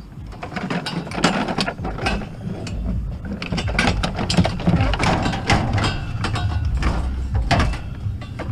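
Scrap metal pieces clattering, knocking and scraping against each other and the van's floor as they are shoved into a nearly full cargo van, a dense irregular run of metallic knocks.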